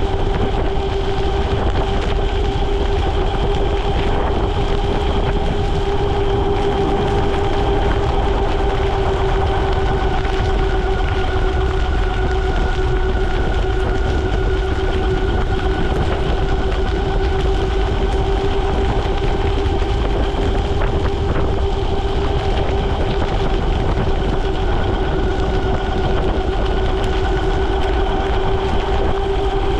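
Ariel Rider Grizzly e-bike's electric motor whining steadily at about 32–34 mph, over low wind rumble on the microphone and tyre hiss on the wet road.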